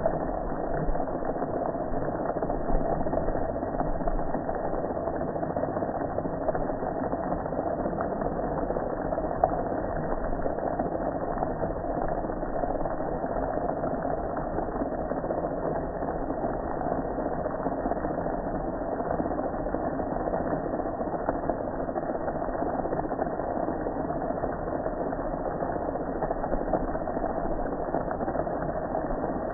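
Pressure washer running steadily, its water jet spraying onto a metal gas grill.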